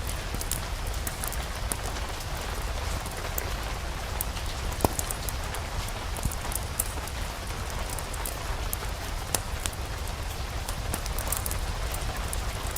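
Steady rain with a low rumble beneath it, mixed with a fireplace fire crackling: scattered sharp pops and clicks throughout, the loudest about five seconds in.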